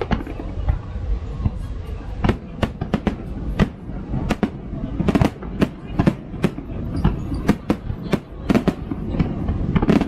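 Aerial fireworks shells bursting in quick, irregular succession: many sharp bangs, several a second, over a low rumble.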